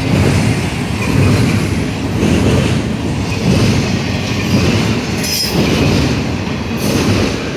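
Double-stack intermodal freight cars rolling past at close range: steady rumble and clatter of steel wheels on the rails, swelling and easing as each car's trucks go by. A brief high wheel squeal cuts in about five seconds in.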